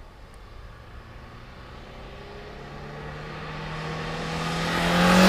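Renault 5 with a GT Turbo engine approaching at speed, its engine note growing steadily louder and rising slightly in pitch as it closes in.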